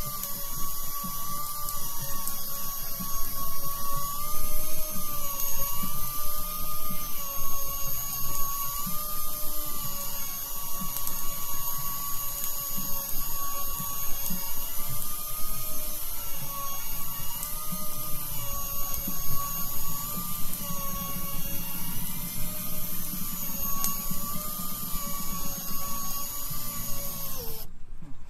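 Electric fishing reel's motor whining steadily as it winds line in under load, its pitch wavering slightly as a hooked fish pulls against the bent rod. The whine drops in pitch and cuts off near the end.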